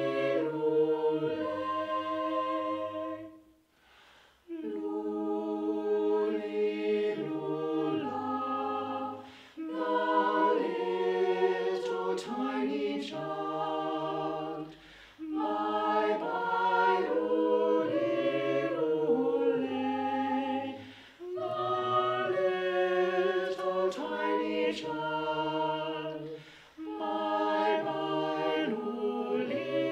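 Mixed-voice chamber choir singing a carol a cappella, in phrases of about five seconds with brief pauses between them.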